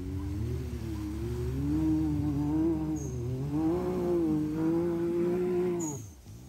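Can-Am Maverick X3's turbocharged three-cylinder engine revving up and down as the side-by-side ploughs through a river, with water spraying from its wheels; the engine sound falls away near the end.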